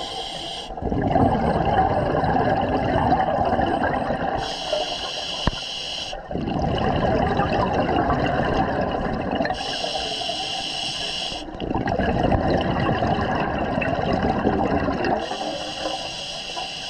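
Scuba diver breathing through a regulator, heard underwater: a hissing inhale of about two seconds roughly every five seconds, each followed by a longer rush of bubbling exhaled air.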